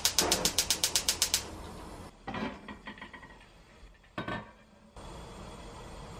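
Gas stove burner's spark igniter clicking rapidly, about eight clicks a second for a second and a half, until the burner lights. Two short metal clanks follow as a stainless steel pot lid is handled.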